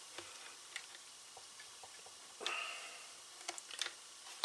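Faint, scattered small clicks and light rattles of parts being handled while a chainsaw is taken apart, with a cluster of clicks near the end and a short breathy rustle about halfway through.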